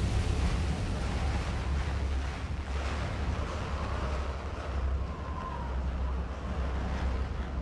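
Spaceship sound effect in a sci-fi film: a low, steady engine rumble under a rushing, wind-like noise as the ship flies through clouds of dust.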